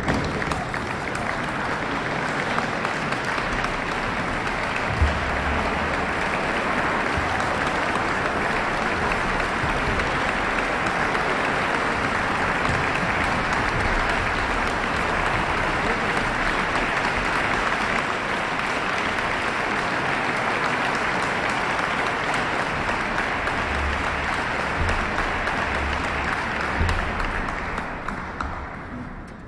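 Concert audience applauding steadily, the applause fading out over the last couple of seconds.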